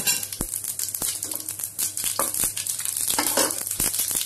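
Mustard and cumin seeds sizzling in hot oil in a stainless steel pan, with a steady hiss and many sharp, irregular pops as the seeds start to splutter: the tempering (tadka) stage.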